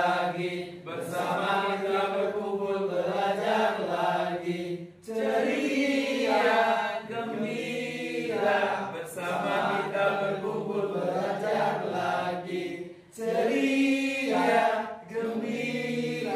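A group of adults singing a song together in unison, in Indonesian, in phrases with short breaks about five and thirteen seconds in.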